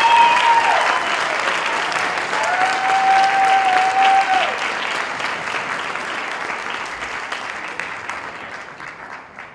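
Audience applauding, with a couple of long held cheers over the clapping; the applause dies away toward the end.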